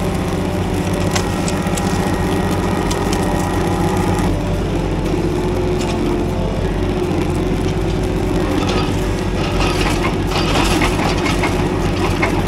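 Engine of the loader working a pallet fork grapple, running steadily while brush and limbs crack and splinter in its grip. The cracking comes thickest in the last few seconds.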